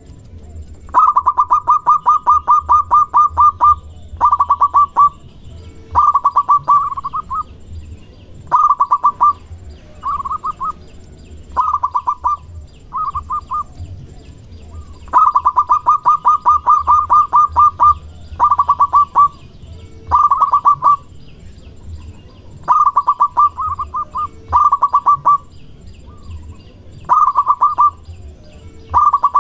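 Zebra dove singing: bouts of rapid staccato notes, about five a second, each bout one to three seconds long, repeated about a dozen times with short pauses between. A faint low hum runs underneath.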